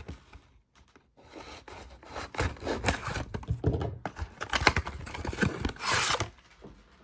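Packaging of a Yu-Gi-Oh booster display being handled and torn: scraping, rustling and tearing starting about a second in, with a louder rush near the end.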